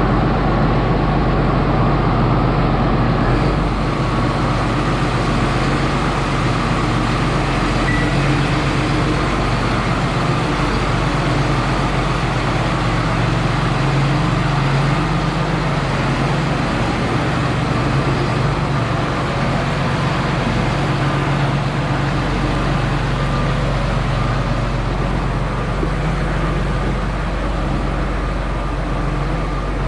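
A large farm engine running steadily at constant speed, a loud, even drone with no changes in pitch.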